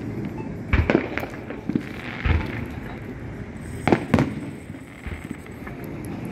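Aerial firework shells bursting: a string of booms, the loudest coming in two close pairs about a second in and about four seconds in.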